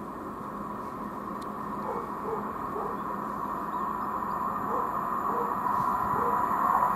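Diesel passenger train approaching along the line in the distance, its running noise growing gradually louder.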